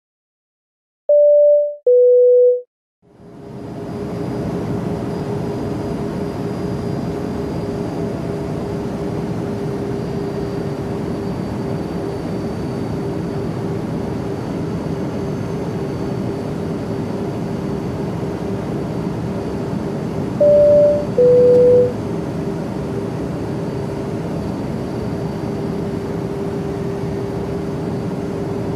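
Airliner cabin sound: a two-tone high-low cabin chime, then the steady drone of the jet cabin with a low hum fading in. The same high-low chime sounds again about two-thirds of the way through.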